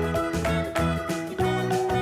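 Upbeat children's background music with a steady beat and a bright melody.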